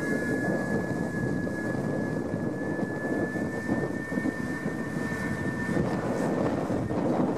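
New Holland TS115 tractor's diesel engine running steadily under load while pulling a plough, with a thin high whine over the drone that fades out near the end.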